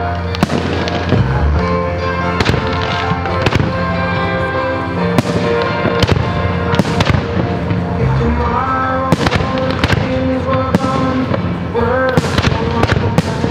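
Aerial firework shells bursting with sharp bangs, about fifteen of them at irregular intervals, roughly one a second. Music with sustained notes plays underneath throughout.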